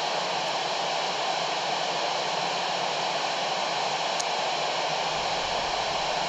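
Steady FM radio static hissing from a Kenwood handheld receiver's speaker on the 2 m amateur band: open-squelch noise with no clear voice on the channel between transmissions from the space station.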